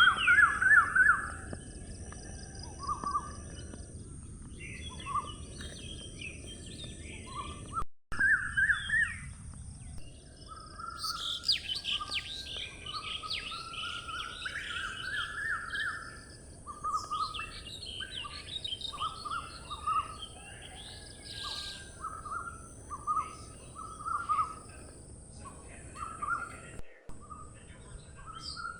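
Several birds chirping and calling in short, repeated phrases over a steady high hiss. The whole sound briefly drops out twice.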